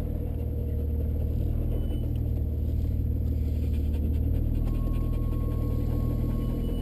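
Jeep Wrangler engine running steadily at low revs, crawling over a rocky dirt trail.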